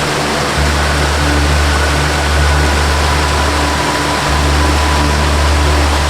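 Waterfall rushing, a steady full hiss of falling water, mixed with a soft ambient melody: deep held bass notes that shift about half a second and about four seconds in, and faint long high tones above.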